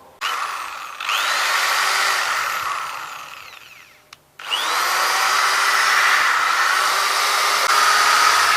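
Cheap 10 mm, 350-watt corded electric hand drill running free with no load. It whines up to speed, then picks up speed again about a second in. It winds down to a stop near the middle, then starts again and runs steadily.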